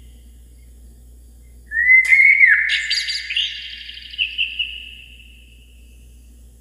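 A single bird call about two seconds in: a quick upward-sweeping note followed by a few overlapping notes that hold steady and fade out slowly over about three seconds. A faint low hum runs underneath.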